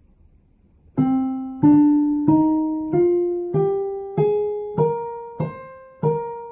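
Piano playing a C natural minor scale from middle C, one note at a time: the notes climb evenly, a little over one a second and a half, and turn back down near the end.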